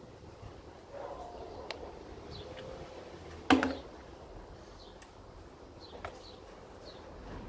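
Plastic laundry basket knocking on the floor: one sharp clunk about three and a half seconds in, with a few lighter taps around it. Faint high bird chirps come and go in the background.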